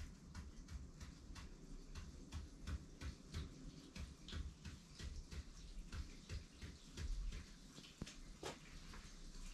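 An ink pen tapping and scratching short vertical tally marks onto paper, one quick tick after another at about two to three a second, with one stronger stroke near the end, over a faint low rumble.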